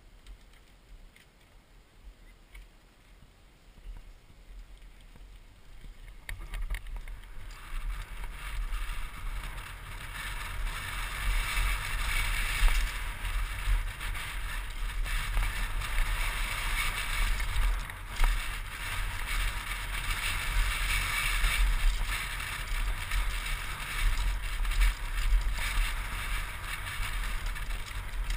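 Mountain bike descending a rough dirt-and-gravel trail, heard from the rider's helmet camera. Fairly quiet rolling at first, then from about seven seconds in a steady loud rush of wind on the microphone and tyre noise over the loose surface, with occasional jolts.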